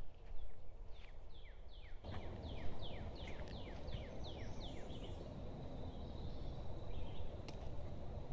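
A songbird sings a quick series of about a dozen whistled notes, roughly three a second, each sliding down in pitch. Under it runs a low rumbling noise that grows louder about two seconds in, and a faint high steady tone follows the song.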